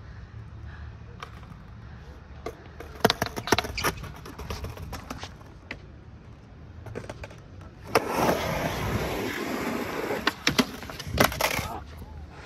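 Skateboard run: sharp clacks of the deck and wheels on concrete, then about 8 seconds in a loud, steady scrape of wheels rolling and the deck sliding along a waxed ledge in a noseslide attempt, ending in more clacks as the rider comes off and the board rolls away on its own.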